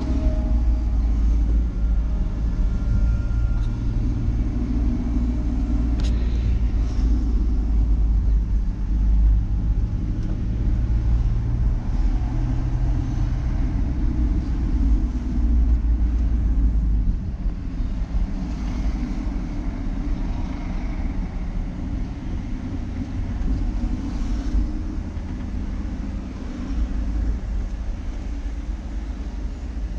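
A vehicle's engine and road noise heard from inside the cabin while driving: a steady low rumble that eases off a little in the second half as the vehicle slows in traffic.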